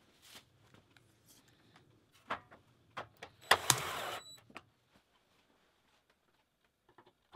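Cordless drill-driver running briefly, under a second, driving a screw into the sheet-metal end of a light fixture. A few light knocks from handling the metal fixture come before it.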